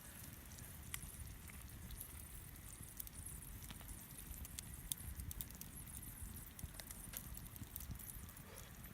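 Wood campfire crackling, with scattered sharp snaps and pops over a low rumble.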